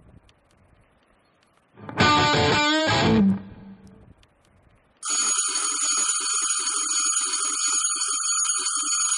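Gate intercom doorbell ringing, a loud steady electric ring that starts the instant the button is pressed about five seconds in and holds for about four seconds. Before it, about two seconds in, comes a short loud sound whose pitch falls over about a second.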